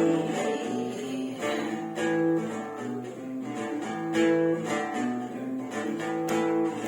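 Acoustic guitar strumming chords, changing chord every second or two, with no singing.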